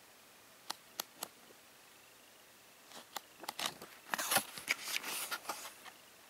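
Sheets of patterned scrapbooking paper being turned over in a paper pad: three light clicks in the first second and a half, then a few seconds of paper rustling and crinkling from about three seconds in.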